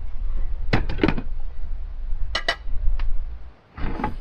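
Metal cooking pot and lid clinking and clattering in a few quick clusters of sharp knocks, over a steady low rumble.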